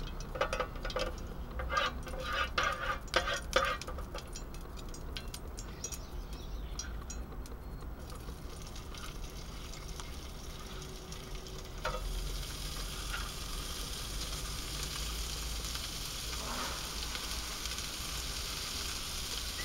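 A few metal clinks and taps in the first seconds, then sliced kabanos sausage sizzling in a Trangia frying pan on a gas stove, the sizzle getting louder about halfway through as more slices go in.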